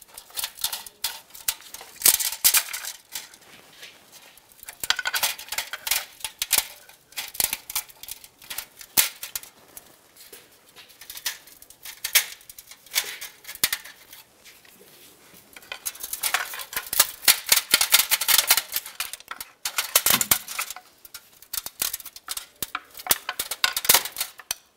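A small pry bar working an old metal exhaust manifold gasket off its studs on the engine: bursts of metal scraping, clicking and rattling, with short pauses between.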